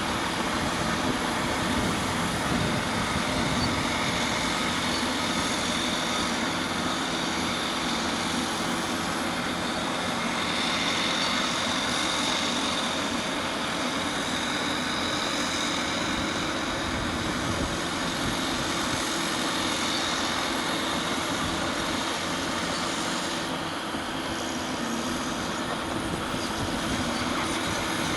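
Caterpillar D6R LGP crawler dozer at work, its diesel engine running steadily. A high whine comes in for a few seconds about ten seconds in.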